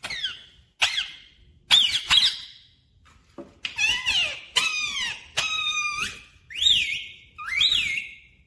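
Parakeet calling: a string of about nine short whistled calls, roughly one a second, many sweeping down or rising and falling in pitch.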